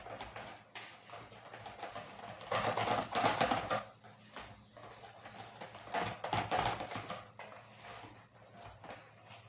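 Pancake batter being stirred by hand in a bowl: a utensil clicking and knocking rapidly against the bowl in two spells, about two and a half and six seconds in.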